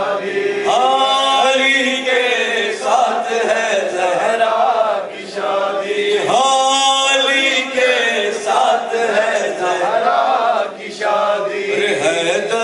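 Men's voices singing a devotional Urdu qasida in a chant-like melody, with no instruments. The long sung lines pause briefly about five seconds in and again near the end.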